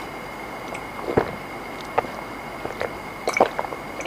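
A person eating: scattered soft mouth clicks and smacks of chewing and biting food, over a faint steady high-pitched whine.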